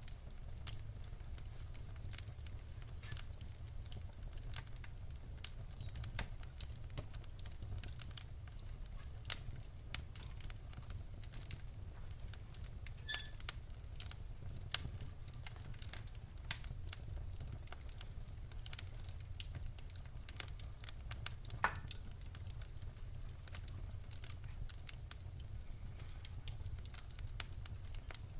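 Wood fire burning in a fireplace: irregular crackles and small pops of burning logs over a steady low rumble of the flames.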